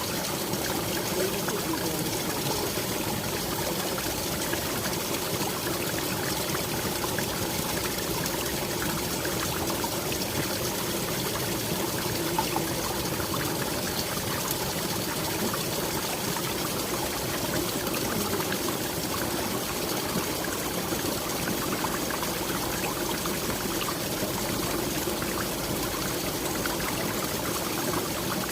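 A waterfall in a Japanese garden stream, the water falling and rushing in a steady, unbroken flow.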